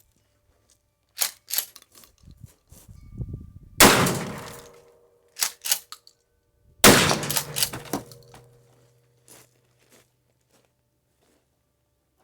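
Two shotgun shots about three seconds apart, each with a ringing tail. Each shot follows a pair of sharp metallic clicks of the gun's action being worked.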